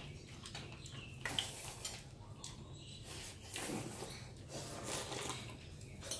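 Chopsticks and spoons clicking and scraping against ceramic bowls as people eat noodles and soup, with a few short noisy sounds in between.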